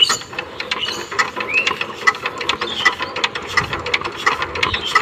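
Power tiller engine being hand-cranked: a fast mechanical ratcheting clatter, with a louder click about every three-quarters of a second.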